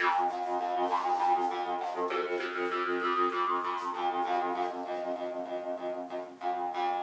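Harmonica played with cupped hands, several notes sounding together as held chords that shift slowly, with a brief break about six seconds in.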